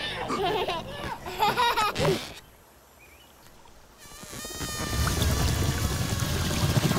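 Wordless vocal sounds for about two seconds, then a near-silent pause, then a low rumbling swell that builds through the last three seconds.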